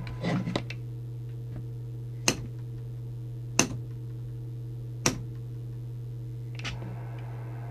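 Steady low electrical hum from the CB radio bench setup, with three sharp clicks about a second and a half apart and a softer one near the end.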